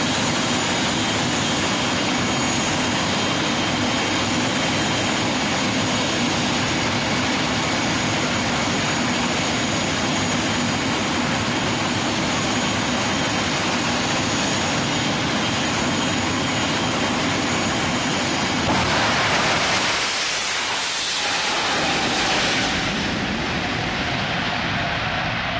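Jet funny cars' turbine engines running steadily, a constant rush with a thin high whine over it. Near two-thirds of the way through, the sound changes abruptly to a jet funny car passing under power, swelling and then falling away.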